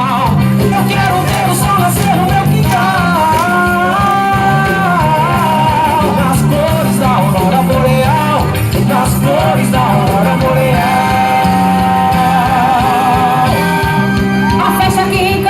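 Loud music for a quadrilha junina dance: a song with long held sung notes, some with vibrato, over a repeating bass line.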